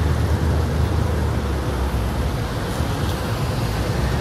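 Steady low rumble and hiss of road noise from a vehicle on the move.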